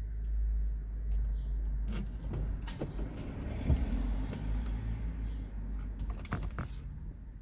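Low rumble of a car idling, heard from inside the cabin, with a few sharp clicks and knocks scattered through it.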